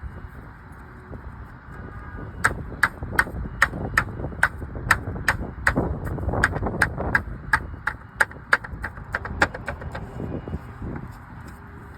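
Hammer blows during slate roof repair: a quick, even run of about twenty sharp strikes, roughly three a second, starting about two seconds in and stopping a couple of seconds before the end.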